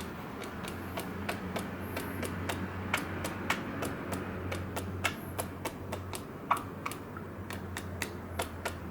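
Irregular run of sharp tapping clicks, a few a second, in a Morse-code-like pattern of short and longer gaps, over a low steady hum.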